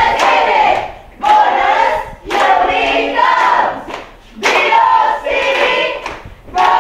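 A group of people shouting a cheer together in loud bursts, about four calls with short breaks between them.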